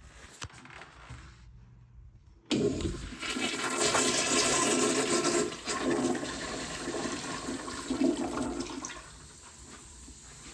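A Crane toilet flushing. A sudden rush of water starts about two and a half seconds in and stays loud for a few seconds, then eases off to a quieter run of water near the end.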